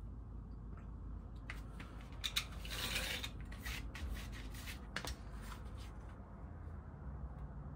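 Leather being cut into strap pieces: a few sharp cuts, then a short, louder scraping stretch about three seconds in and another cut near the middle, over a steady low hum.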